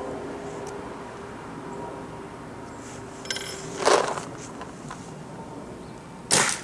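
A brief metallic clink about three seconds in, then a Planet Eclipse Ego 11 paintball marker firing two single shots, sharp pops about two and a half seconds apart.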